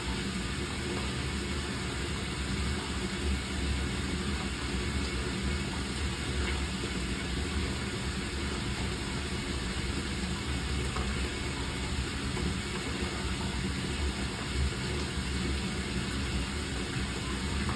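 Dishwasher running its wash cycle: a steady motor hum under the even hiss of water spraying inside the tub, with no change throughout.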